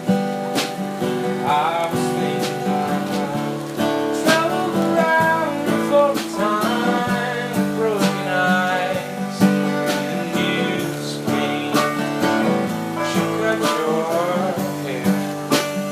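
Music: a guitar-led song with no lyrics in this stretch.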